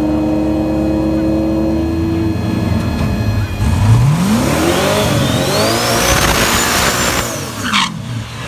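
Turbocharged fourth-generation Chevrolet Camaro doing a burnout. The engine holds a steady rev, then from about three seconds in the revs climb with a rising turbo whistle and the hiss of spinning rear tyres, easing off near the end.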